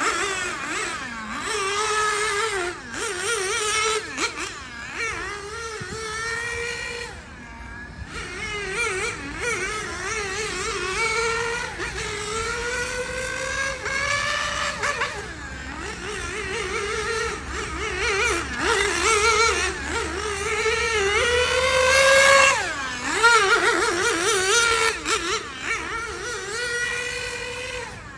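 Small nitro glow engine of a 1/8-scale RC car running during break-in, its pitch rising and falling again and again as the throttle is worked, loudest at a high rev about three quarters of the way through.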